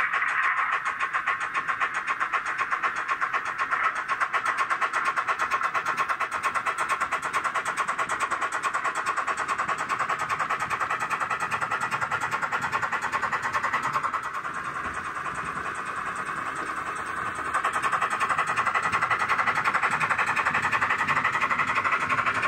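Model Sentinel steam shunter's DCC sound decoder playing its rapid, even exhaust chuffing through a small sugarcube speaker, which gives it a thin sound. It drops in level for a few seconds past the middle, then comes back up.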